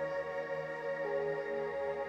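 Background ambient music: sustained, steady synthesizer-like tones, with a new held note coming in about a second in.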